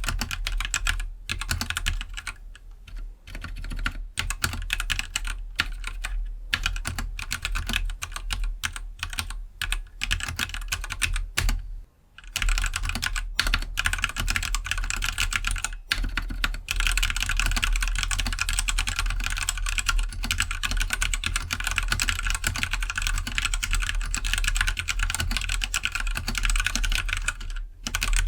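Typing on a Keydous NJ68 65% mechanical keyboard with stock Gateron Black switches: a steady stream of key clacks. It stops briefly about twelve seconds in, then resumes denser and more continuous.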